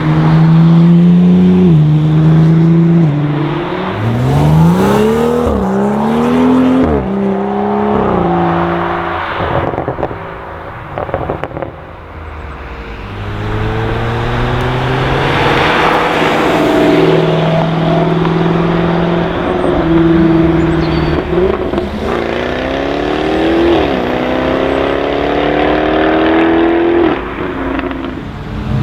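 Performance cars accelerating hard, engines climbing in pitch through the gears with a drop at each upshift. Around ten seconds in there is a patch of exhaust crackles and pops.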